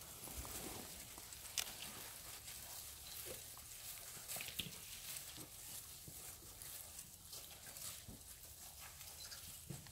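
African elephants moving and browsing at very close range: faint rustling of dry grass and brush, with a few sharp snaps, the loudest about one and a half seconds in and again around four and a half seconds in.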